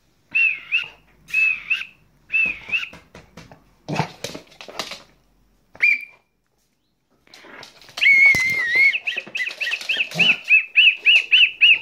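Someone whistling: three short wavering notes, a brief note around six seconds in, then from about eight seconds a longer whistled run that breaks into quick up-and-down warbles.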